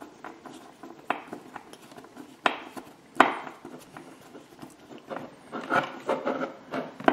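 Small hand screwdriver turning a tiny screw into a plastic model part: faint scraping and ticking of the tip in the screw head, with a few sharper clicks, the loudest about two and a half and three seconds in.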